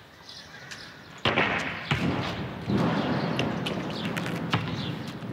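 A thrown basketball hits something with a thump about a second in, followed by a few seconds of rough noise.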